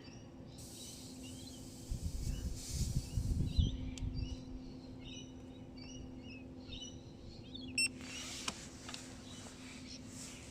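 Quiet handling noise with a cluster of low bumps about two to four seconds in, as a tyre pressure monitoring sensor is screwed onto a tyre valve, with faint bird chirps in the background.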